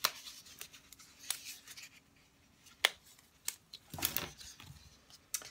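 Cardstock and glue dots being handled on a tabletop: scattered light clicks and taps, a sharp tick near the middle, and a brief rustle about four seconds in.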